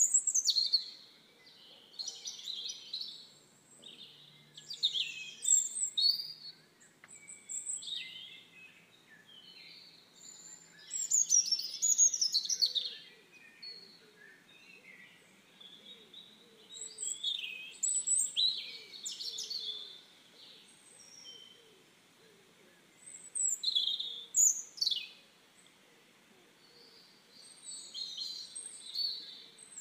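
Songbirds chirping and singing in quick high-pitched phrases, including short downward-sweeping whistles. The song comes in bursts every second or two with quiet gaps between.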